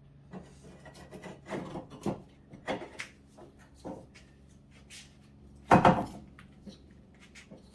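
Tools and metal suspension parts being handled during front CV axle and lower ball joint work: scattered knocks, clicks and scraping, with one louder clatter about six seconds in.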